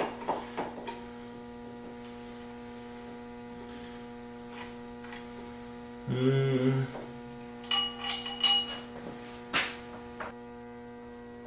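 Steel bolts, nuts and washers clinking and tapping against each other and the motor's mounting feet as they are handled, over a steady electrical hum. About six seconds in comes a brief, louder low-pitched sound.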